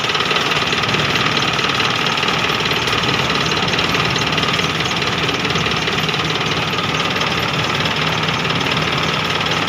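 A machine van's diesel engine running steadily with an even, clattering knock.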